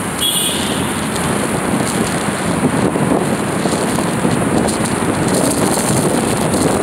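Wind buffeting the phone's microphone over the steady rush of traffic in a road tunnel, heard from a moving vehicle. A short high-pitched tone sounds just after the start.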